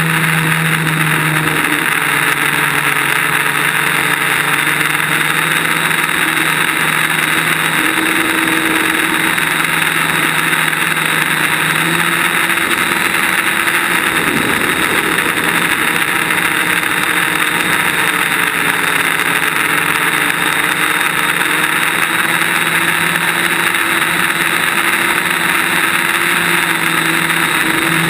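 DJI Flame Wheel quadcopter's motors and propellers humming steadily, heard through the GoPro mounted on the craft, over a constant hiss of rushing air. The hum's pitch drifts up and down a little as the throttle changes.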